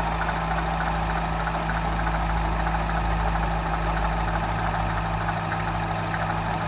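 Citroën DS3 THP's 1.6-litre turbocharged four-cylinder petrol engine idling steadily, with a fine rapid ticking above the engine note. This is the strange noise the owner is recording.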